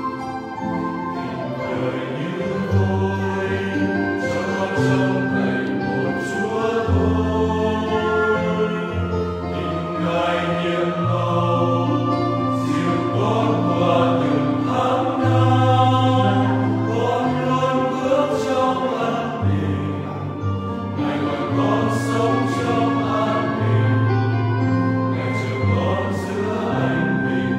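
Mixed choir of young men and women singing a Vietnamese Catholic hymn in unison, over long held low accompaniment notes.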